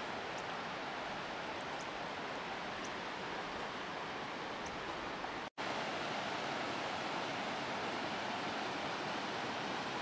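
Steady rushing of water echoing in a rocky canyon, broken for an instant about halfway through.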